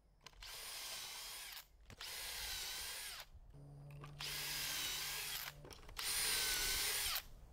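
Cordless Makita drill boring pocket holes into a pine board through a pocket-hole jig, in four short runs about a second each. In each run the whine dips in pitch as the step bit bites into the wood and then rises again.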